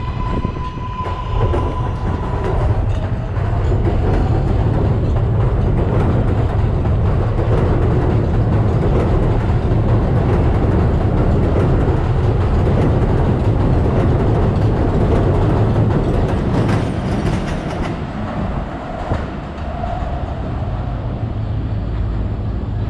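R188 subway train running along the track with a heavy, steady rumble and wheel clicks over the rail joints. It is loudest from a few seconds in until about 18 s in, then eases. At the start a steady whining tone from the train's propulsion dies away about 3 s in.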